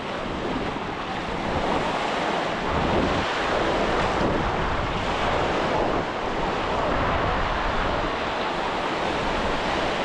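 Ocean surf washing on a sandy beach in a steady roar, with wind buffeting the microphone as a low rumble that grows stronger about three seconds in.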